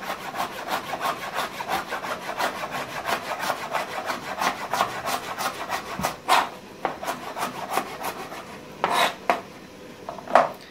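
Chef's knife finely shredding cabbage on a plastic cutting board: rapid, even strokes of the blade slicing through the leaves and tapping the board, with a few louder knocks in the last few seconds.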